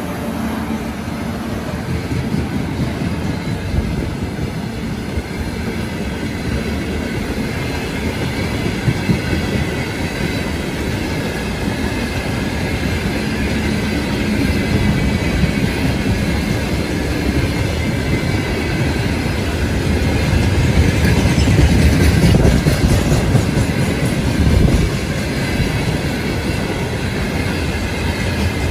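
Freight train of tank wagons rolling past at speed, its wheels rumbling and clattering over the rails; the rumble grows louder towards the end.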